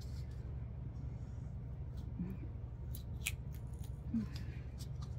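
A few short clicks and scratches as a thin stem is pushed and twisted into a small artificial pumpkin, over a steady low background hum.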